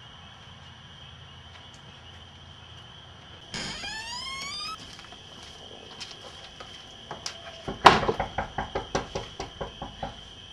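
A door creaks open with a rising creak about three and a half seconds in. Some four seconds later comes a loud knock, followed by a quick run of fading knocks and clatter. A steady hiss sits underneath.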